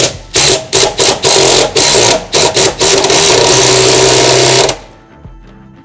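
Cordless impact driver spinning a bolt through a 7/16-inch socket to set a plus nut (blind rivet nut), compressing its sleeve against the van's floor sheet metal. It is pulsed in several short bursts, then run in one continuous burst of about a second and a half that cuts off near the end.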